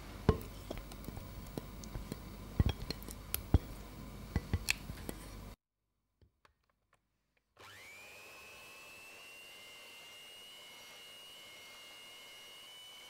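Scattered sharp clicks and knocks of a spatula against a glass mixing bowl, then a short silence. Then an electric hand mixer starts, its whine rising quickly to a steady high pitch as the beaters whip a cream cheese filling.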